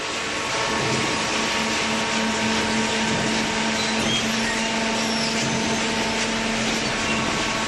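Hydraulic waste-paper baler running: a steady machine hum with a constant tone and an even hiss over it.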